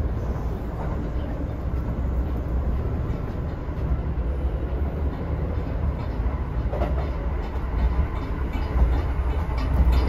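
Cabin noise of a Kintetsu 19200 series limited express car, rebuilt from 1974 12200 series stock, running at speed: a steady low rumble with a few faint clicks from the wheels. It grows a little louder near the end.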